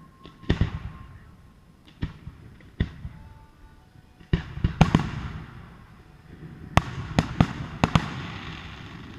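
Aerial fireworks shells bursting with sharp bangs and a rumbling echo. A few single bangs come first, then two quick volleys of four or five bangs each, about four and seven seconds in, the last followed by a crackling hiss.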